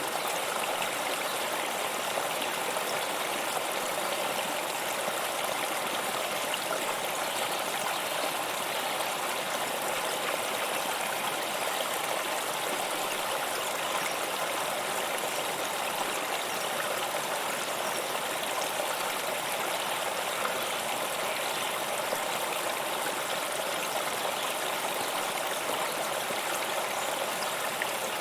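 Waterfall water pouring and splashing in a steady, even rush with no change in level.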